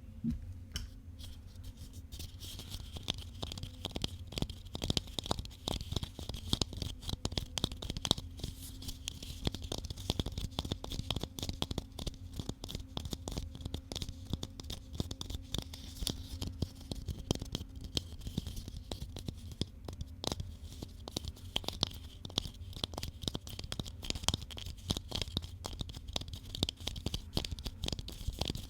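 Rapid, dense tapping, many small irregular taps a second, going on without a break.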